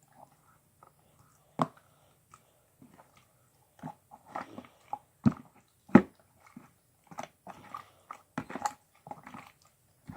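Homemade glue slime being mixed and squeezed by hand, with irregular sticky squelches and clicks. They grow busier after about four seconds, the loudest about six seconds in.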